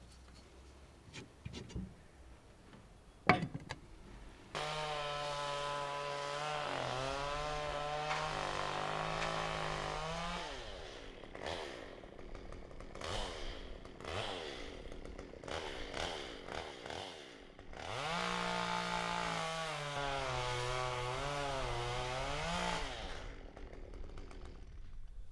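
Chainsaw running at high revs, its pitch wavering as it works, in two long runs about six and five seconds long, with rougher, uneven stretches between them. It opens with a few seconds of near quiet and faint clicks.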